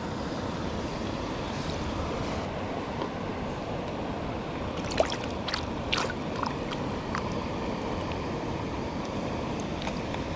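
Mountain stream water rushing steadily, with a few sharp clicks about halfway through.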